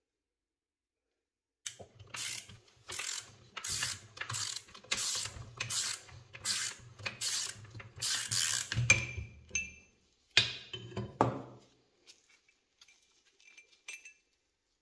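Ratchet wrench cranked back and forth on a rusted bolt in a cast iron leg, a rasping click on each stroke, about a dozen strokes roughly three-quarters of a second apart. Then a sharp metal knock with a short clatter, and faint small clinks near the end.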